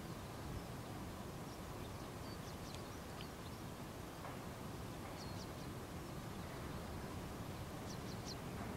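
Steady background rushing noise with faint, short high chirps of small birds, in a few brief clusters.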